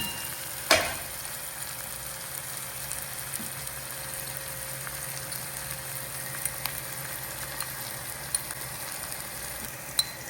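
Onion-and-tomato masala sizzling steadily in hot oil in a pan, with one sharp knock about a second in and a few light clicks later on.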